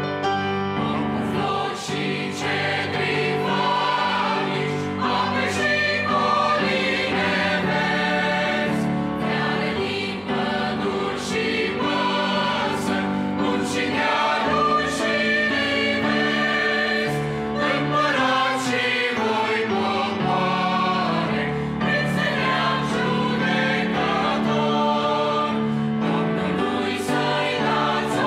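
Mixed choir of men's and women's voices singing a Romanian hymn in harmony.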